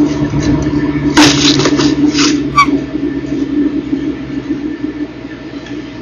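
Eagle nest camera microphone picking up a steady low hum with rustling noise, a loud burst of rustling about a second in, and a short high-pitched chirp just after it.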